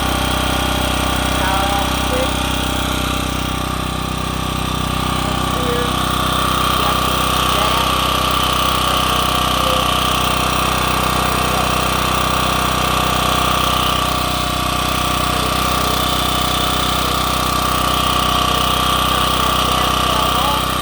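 Champion portable generator (model 42436) engine running steadily at a constant speed, with a steady hum and a held whine, swelling slightly in level now and then.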